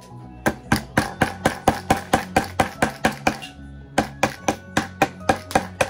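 Hammer driving nails, rapid blows about four a second in two runs with a short pause in the middle, over background music.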